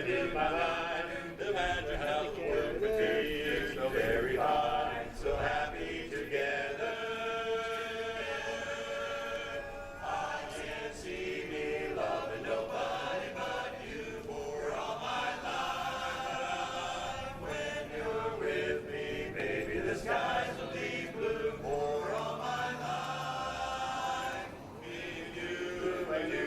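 An a cappella chorus singing in close harmony, with long sustained chords and phrases that swell and break off every few seconds.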